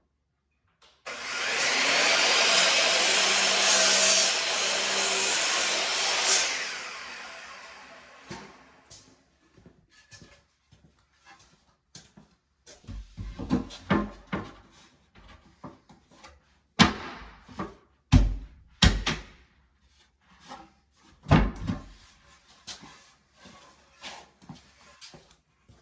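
A power tool's motor starts abruptly, runs steadily for about five seconds, then winds down as it coasts to a stop. Scattered knocks and clatter of tools and wood being handled follow, with a few loud thumps.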